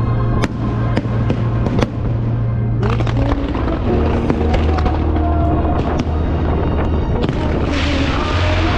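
Aerial fireworks going off in quick succession, sharp bangs and crackles, over a music soundtrack with held notes and a steady bass. Near the end a hissing crackle swells up.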